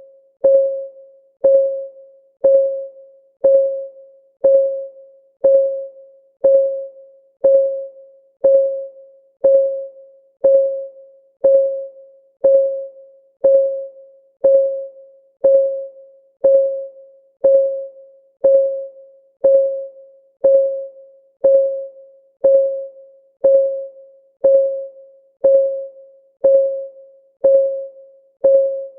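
Countdown-timer ticking: one short tick every second, each a single mid-pitched tone that fades quickly, perfectly even.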